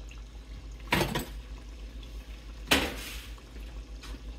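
A wire-mesh skimmer knocking against a stainless steel frying pot twice, about a second in and again near three seconds, each strike with a short metallic ring. Under it is the faint sizzle of dough deep-frying in oil.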